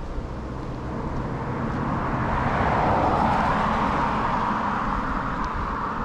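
A car passing on the street, its tyre and road noise swelling to a peak about three seconds in and then fading away.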